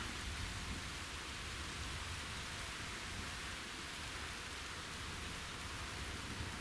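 Steady outdoor background noise: an even hiss with a low, uneven rumble of light wind on the microphone.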